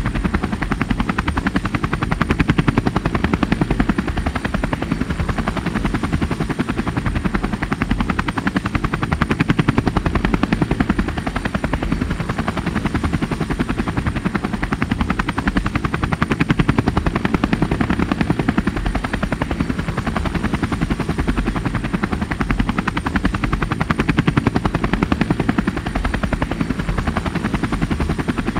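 Small multirotor drone's propellers and motors buzzing steadily, a dense fast chopping with a thin constant high whine over it, swelling a little and easing again now and then.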